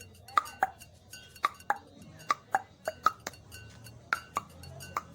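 A man's tongue clicks and pops in an uneven rhythm, often in pairs, about two to three a second. Each click carries a short pitched ring, and the pitch shifts from click to click as the shape of the mouth changes.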